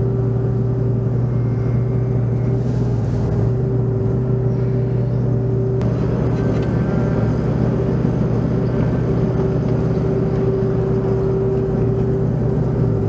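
Excavator's diesel engine running steadily, heard from the cab, while the machine scoops and swings loads of sawdust and wood chips over a fence.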